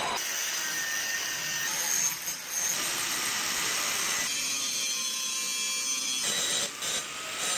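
A power tool running on the steel of a car spring, a hissing, high-pitched working noise that changes abruptly about two seconds in, again around four seconds in, and once more after six seconds.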